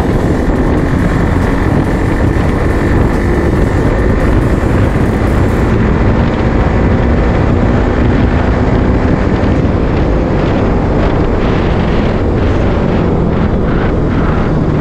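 Bajaj Pulsar NS200's single-cylinder engine running steadily at highway cruising speed, mixed with heavy wind rushing over the camera microphone.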